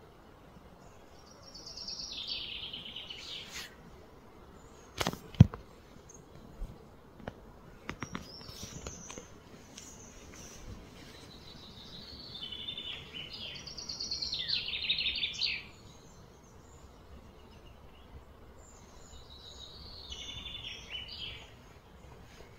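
Three bouts of high, rapidly pulsed buzzing from cicadas, each two to three seconds long, that swell and fade: about two seconds in, from about twelve to fifteen seconds in, and near the end. A sharp click about five seconds in, the loudest sound, is followed by a few fainter knocks.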